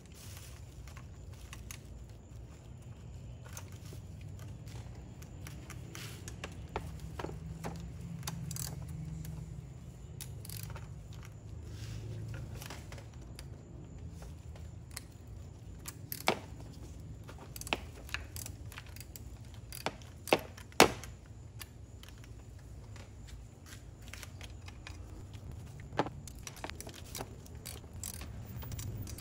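Scattered metallic clicks and clinks of hand tools working the oil filter housing's bolts on a BMW N55 engine, with a few louder clinks a little past the middle, over a steady low hum.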